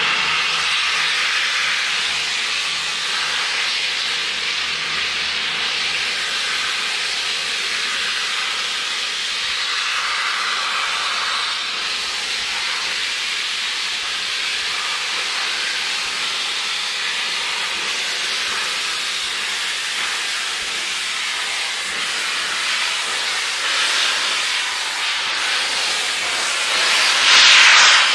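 Steam hissing steadily from the Bulleid Pacific steam locomotive 34053 Sir Keith Park, growing louder near the end as the steam envelops the platform.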